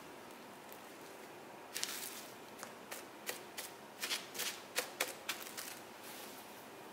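Plastic cling wrap crinkling and crackling in a run of sharp bursts as hands lay it over shaped dough and press it down, starting about two seconds in and easing off near the end.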